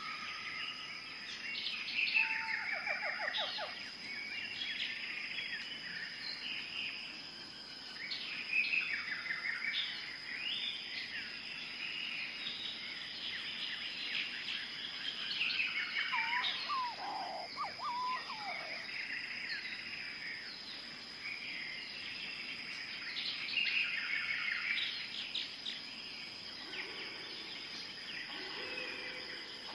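Several birds chirping and calling over one another in short trills and tweets, with a steady high-pitched whine underneath.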